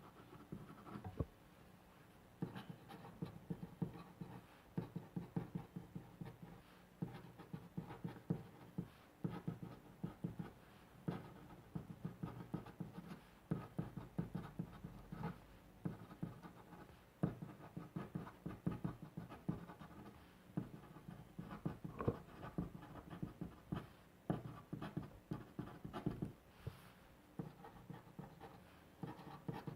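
A pen nib scratching on paper in handwriting: quick irregular runs of short strokes with brief pauses between them.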